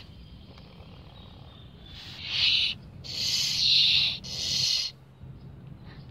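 Young opossums hissing: three hisses, the first about two seconds in and the middle one the longest. The hissing is the angry opossum's defensive threat display.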